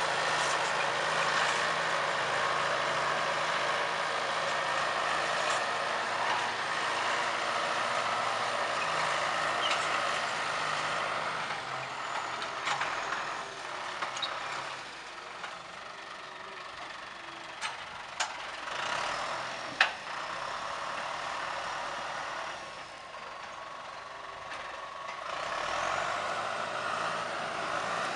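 John Deere tractor's diesel engine running steadily under load as it pulls a disc harrow through the soil. It grows fainter midway as the tractor moves off and louder again near the end as it comes back. A few sharp clanks stand out shortly past the middle.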